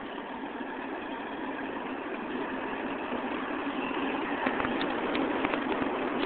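R142 subway train pulling into the station, its rumble growing steadily louder. About four and a half seconds in, the wheels start clacking on the rails.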